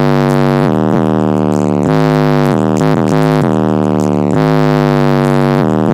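Heavy synth-bass music played loud through an MTX MXS-1204 12-inch car subwoofer on a Sony Xplod XM-1902GX amplifier, heard inside the car's cabin. Its deep bass notes slide down in pitch several times.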